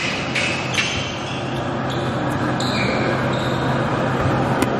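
Basketball players' sneakers squeaking briefly on a gym floor, with a few sharp knocks, over a steady low hum and the echo of a large hall.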